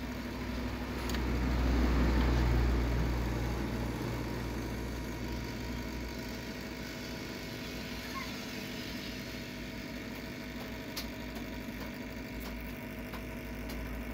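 Hot air rework gun blowing steadily onto a phone circuit board, heating the shorted power IC to desolder it. The rush with its low hum swells about two seconds in, then settles.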